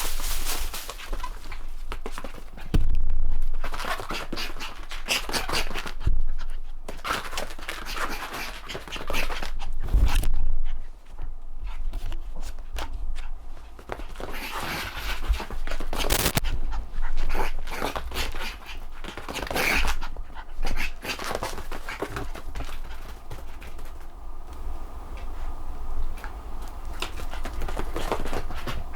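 A Bichon Frise puppy in a zoomies fit, panting as it runs about, with a busy patter of scrabbling and scuffling noise. Several louder thumps come at irregular intervals.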